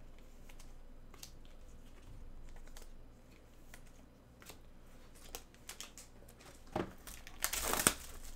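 Faint scattered clicks and ticks of handling, then near the end loud crinkling and tearing of the cellophane shrink-wrap being pulled off a sealed trading-card hobby box.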